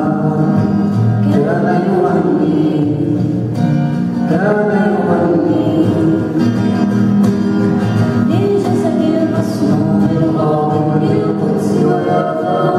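A girl singing an Arabic song into a microphone, holding long notes that glide between pitches, with a small plucked string instrument accompanying her.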